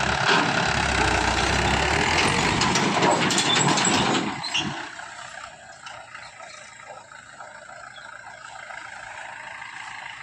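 Tractor diesel engine running loudly, then falling away sharply about four seconds in, leaving quieter background noise.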